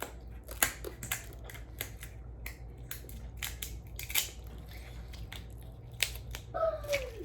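Snow crab shell being cracked open by hand: a series of sharp snaps and crunches at irregular intervals. A brief voice sounds near the end.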